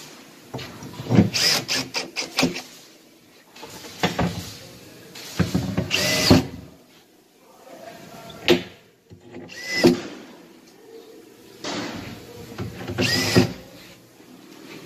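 Power drill with a number 2 Phillips bit driving machine screws through a wardrobe door's hinge flange, in several short bursts of the motor.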